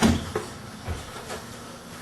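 A loud knock followed by three weaker knocks about half a second apart, fading.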